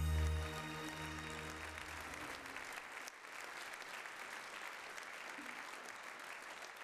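A title-card music sting with a deep bass note dies away over the first two seconds or so, under a large theatre audience applauding; the applause carries on alone after the music ends.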